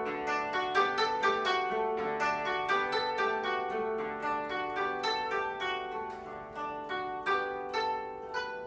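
Koto ensemble playing a quick, continuous run of plucked notes over longer ringing lower notes, growing a little quieter near the end.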